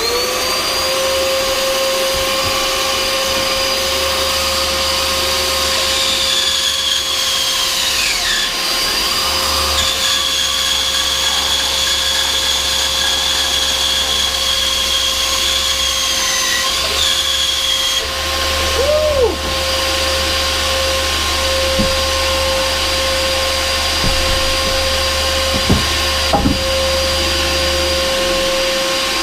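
Einhell band saw motor coming up to speed, then running with a steady whine while the blade feeds slowly through wood. A higher tone in the whine dips and wavers about eight seconds in as the cut loads the blade, on a saw that keeps slowing and stalling in the cut.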